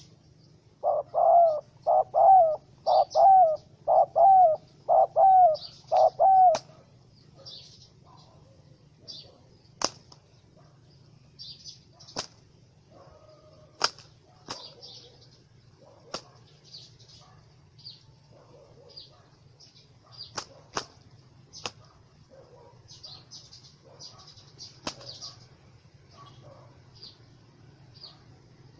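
A trapped spotted dove gives six loud calls in quick succession, about one a second. After them come scattered sharp knocks and flaps as the bird struggles, with small birds chirping faintly behind.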